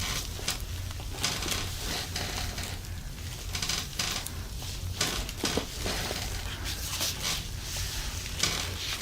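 Hands rubbing and kneading over skin and clothing on a treatment table during a massage: soft, irregular rustling swishes several times a second.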